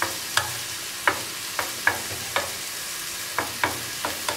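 Spatula tapping and scraping in a nonstick pan, about ten short, sharp taps, as a jackfruit-seed and coconut stir-fry is patted down flat, over the steady sizzle of the mixture frying.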